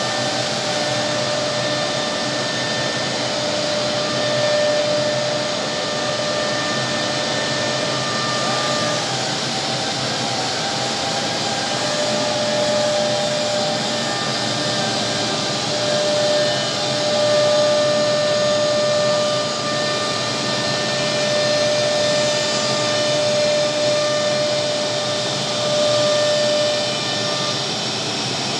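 Single-spindle CNC wood router (Woodmaster WM-RT1325V) running a cut: a steady spindle whine over a continuous rushing noise, with a few high tones that drop out for several seconds and come back as the cut goes on.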